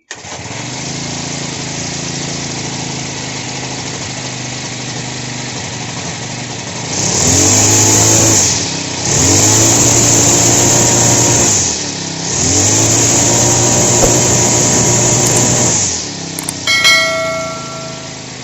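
Honda GX35 four-stroke brush cutter engine idling, then revved to high speed three times, each rev held for a couple of seconds before dropping back to idle. A brief high-pitched ringing tone sounds near the end.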